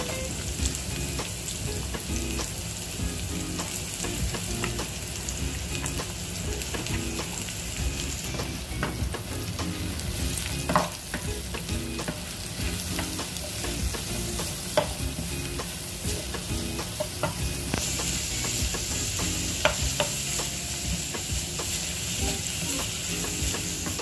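Julienned carrots and sautéed onion, garlic and ginger sizzling in hot oil in a wok, stirred with a wooden spatula that scrapes and clicks against the pan now and then.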